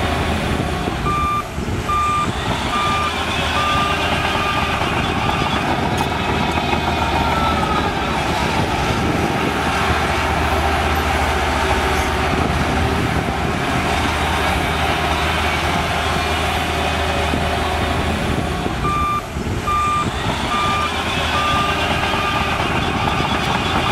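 Diesel bulldozer working, its engine running steadily under load. A reversing alarm sounds a run of about six beeps that fade, once near the start and again near the end.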